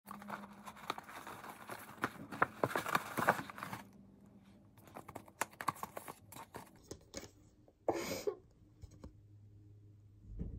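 Paper and cardboard packaging being handled and unwrapped: a dense run of crinkling and crackling for the first few seconds, sparser clicks after, and a short paper swish about eight seconds in.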